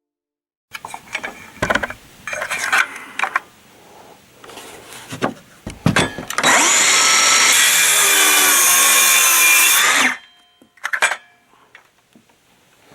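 A series of knocks and clattering from handling, then a power tool runs loudly and steadily for about three and a half seconds and stops abruptly, followed by a few light clicks.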